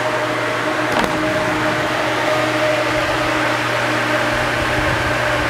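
Large iLiving warehouse fan of a tornado chamber running steadily, rated at 6,000 cubic feet per minute and turned down to about 40%: a constant rush of air with a steady hum. A light click about a second in.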